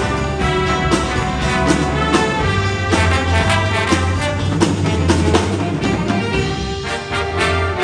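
Jazz big band playing live: a brass section over held bass notes, with drum kit and cymbal hits throughout.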